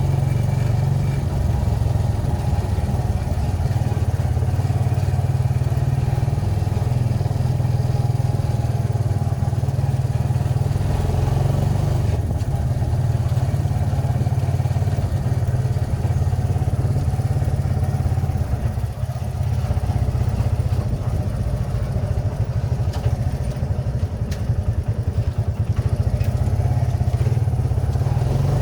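Kawasaki Barako II 175 single-cylinder motorcycle engine running steadily, apparently after its tune-up.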